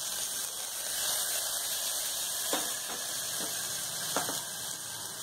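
Chopped onion, curry leaves and whole spices sizzling in hot oil in a small pressure cooker, a steady hiss.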